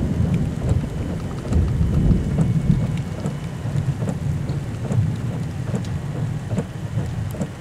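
Thunderstorm noise: a steady low rumble of wind and thunder with faint scattered ticks of rain.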